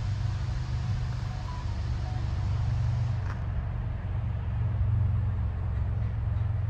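Diesel locomotive engines running, a steady low drone.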